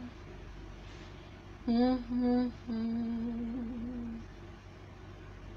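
A woman humming a few held notes: two short notes about two seconds in, then a longer steady note that stops about four seconds in.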